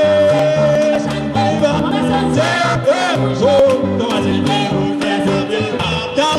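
Upbeat dance music with a lead singing voice, a stepping bass line and a steady beat, playing loudly.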